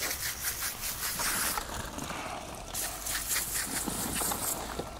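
Garden hose spray nozzle spraying water onto a hanging rabbit carcass to rinse it, a steady hiss in two bursts: the first lasts about a second and a half, the second runs from a little under three seconds in until past four.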